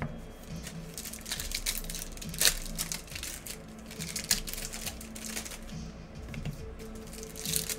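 Irregular light clicks and taps, several a second, with a couple of sharper ones.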